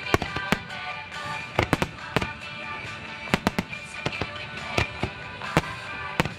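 Fireworks display: about a dozen sharp bangs of bursting shells, some in quick clusters, over music with sustained tones.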